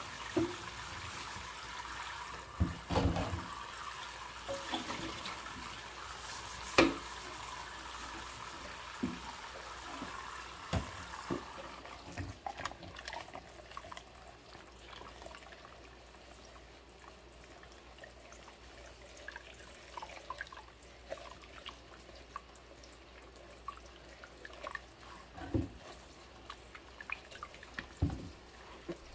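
Tap water running into a stainless steel sink full of soapy water, with a few clunks of dishes. About twelve seconds in the running water stops, leaving splashing, rubbing and small knocks of rubber-gloved hands washing a ceramic mug with a sponge.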